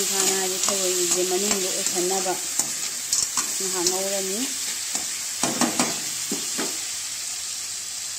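Snails and diced carrots sizzling as they are stir-fried in a metal wok, a slotted metal spatula scraping and stirring through them, with a few sharper clacks of the spatula on the pan a little past halfway. A low humming tone comes and goes during the first half.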